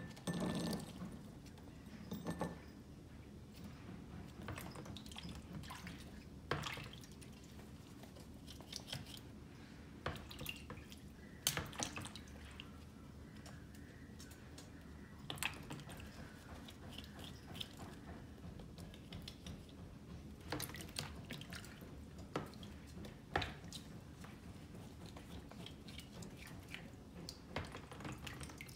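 A white crested duck dabbling and drinking at a shallow bowl of water: its bill dipping in and shaking, giving small splashes and drips at irregular moments, a few of them louder.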